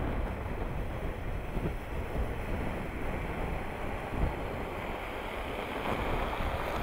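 Jeep Cherokee Trailhawk driving over packed snow as it comes up to and past the microphone: engine and tyre noise on snow, a little louder as it passes close near the end, under a steady rumble of wind on the microphone.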